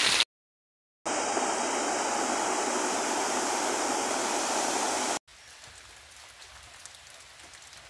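A muddy waterfall in full flow: a steady rush of falling water that starts about a second in, after a brief silent gap, and stops abruptly a little after five seconds. A much quieter hiss follows.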